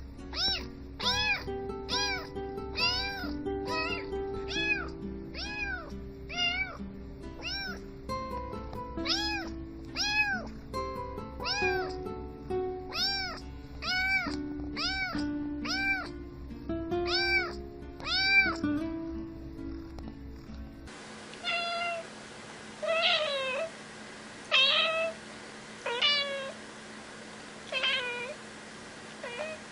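A domestic cat meowing again and again, about once a second, over background music with a low beat. About two-thirds of the way through, the music stops abruptly and the cat goes on meowing every second or two.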